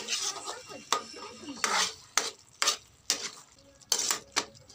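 A metal ladle stirring a thick chicken stew in a pan, scraping and knocking against the pan about eight times, two of the strokes longer scrapes.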